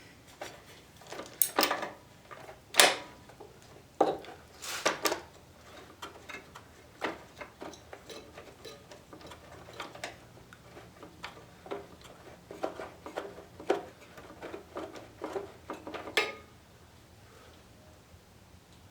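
Metal tool clicks and clanks as a spark plug socket on an extension is fitted to a lawn mower engine's spark plug and turned to loosen and unscrew it. The clatter is uneven, loudest in the first few seconds, with a quicker run of small clicks before it stops about two seconds before the end.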